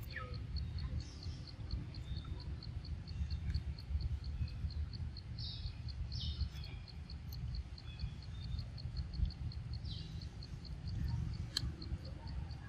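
An insect chirping in short high pulses, evenly about three a second, over a steady low rumble, with a few short high downward calls in between.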